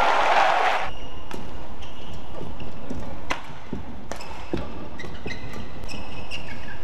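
Badminton play: sharp racket strikes on the shuttlecock about a second apart, mixed with short squeaks of court shoes on the floor. A short burst of crowd noise dies away about a second in.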